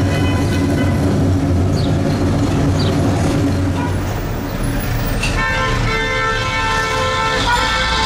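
Low, steady vehicle rumble, then a vehicle horn sounding from about five seconds in. The horn is held for about two seconds, breaks off briefly and sounds again near the end.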